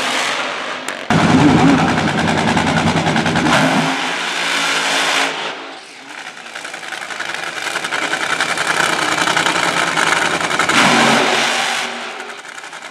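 Supercharged drag-racing Funny Car engines running hard through burnouts. The sound comes in several clips: it jumps in sharply about a second in, dips about six seconds in, swells again and falls away near the end.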